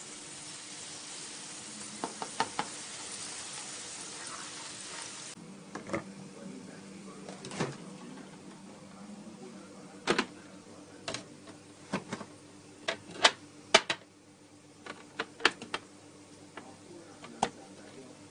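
Wooden spatula stirring curry in a steel kadai, tapping and scraping against the pan in sharp irregular clicks. For the first five seconds a sizzling hiss runs under the taps, then cuts off suddenly.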